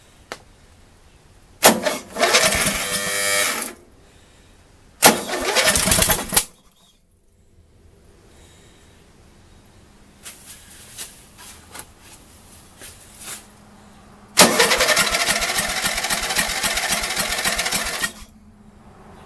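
Briggs & Stratton small engine spun over by its electric starter in three bursts: about two seconds, a second and a half, and about three and a half seconds, each starting suddenly. It is a test fire of a newly fitted Magnetron ignition coil, on fuel poured into the carburetor with the choke on and the throttle wide open. A few faint clicks fall between the second and third bursts.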